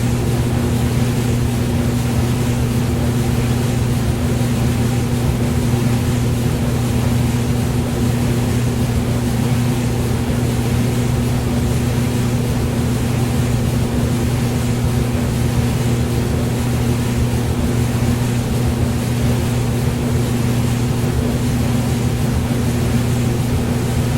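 Hair dryer running continuously: a steady motor hum under an even rush of blown air, unchanging throughout.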